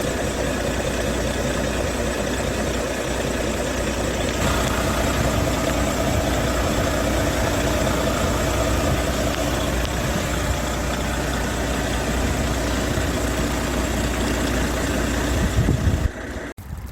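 Large dump truck's diesel engine running steadily at idle, getting a little louder about four seconds in, then cutting off abruptly just before the end.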